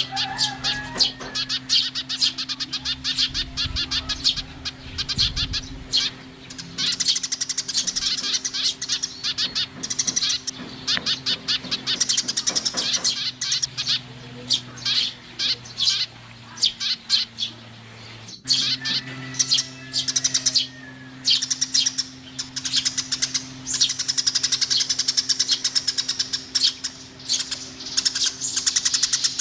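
Eurasian tree sparrows chirping in a dense, rapid, continuous chatter. There is a momentary break about two-thirds of the way through, and a steady low hum runs underneath.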